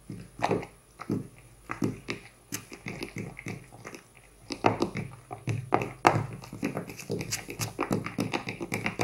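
A fork stirring thick flour-and-water poolish starter in a plastic tub: a string of irregular taps and knocks of the fork against the tub, busier and louder from about halfway through.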